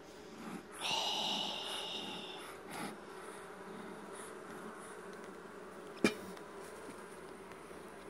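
Honeybee colony buzzing steadily at an open top bar hive. The buzz is louder and higher for a second or so near the start, and a single sharp knock comes about six seconds in.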